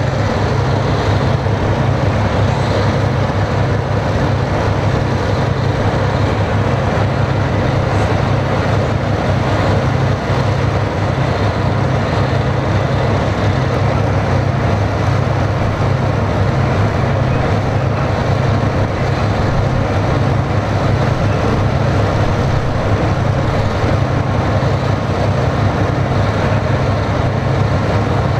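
BMP-2 infantry fighting vehicle's diesel engine running loud and steady, close by.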